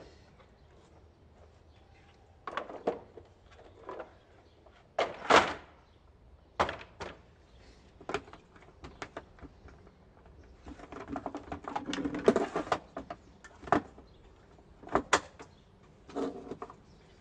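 Knocks and plastic-and-metal clatter of a folding plastic workbench being set up and its bar clamps slotted into the top and adjusted, with a run of quick rattling clicks about two-thirds of the way through.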